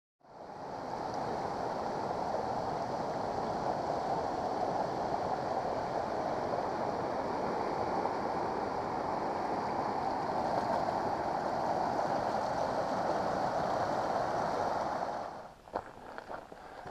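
A steady rush of flowing water, fading in at the start and cutting off about fifteen seconds in. Then come footsteps on a dirt trail.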